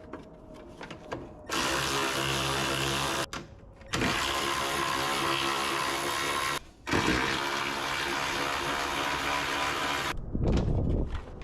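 A power driver running in three whirring bursts of two to three seconds each, with short pauses between them, spinning out the bolts that hold the bumper inside the fender.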